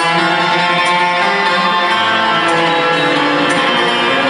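Busker's homemade double-necked, lute-like string instrument played by hand: plucked notes ringing over held, sustained tones, with a sharp pluck now and then.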